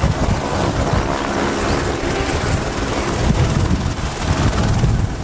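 Light turbine helicopter of the AS350 Écureuil type hovering low: a steady pulsing rotor beat with the thin high whine of its turbine above it.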